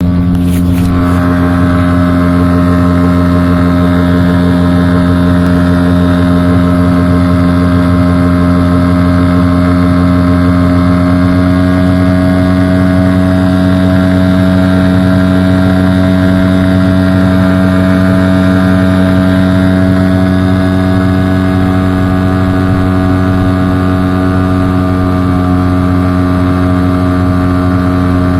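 Hangkai 6 hp outboard motor running steadily at an even speed, its sound carrying an extraneous noise that the owner suspects points to a fault.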